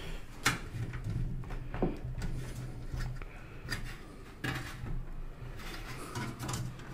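Scattered clicks, knocks and rubbing as a PC tower case's drive cage and trays are handled and tugged at, the drive bay being hard to free from the chassis.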